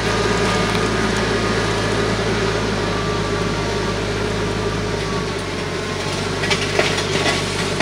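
TYM T474 compact tractor's diesel engine running steadily under load as it drags a land plane through hard, dry clay soil, with the scraping rattle of dirt clods in the blade. A few sharper clicks come about six and a half seconds in.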